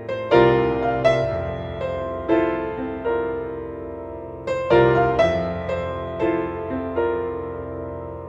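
Background piano music: notes and chords struck every half second or so, each ringing and fading, quieter near the end.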